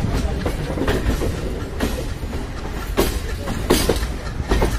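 Passenger train coaches running on the rails, heard at an open coach doorway: a steady low rumble of the wheels with several sharp, unevenly spaced clacks over the rail joints.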